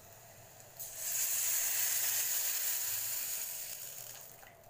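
Buttermilk poured into a kadai of hot oil tempering with mustard seeds, onions and chillies: a loud sizzling hiss starts about a second in, then dies away near the end.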